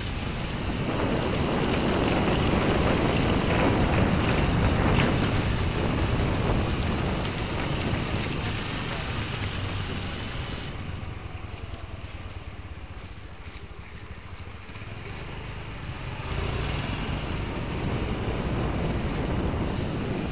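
Wind buffeting the tiny built-in microphone of a pair of camera glasses while moving through the streets, a steady rushing noise. It is loudest in the first half, eases off around the middle, and picks up again about sixteen seconds in.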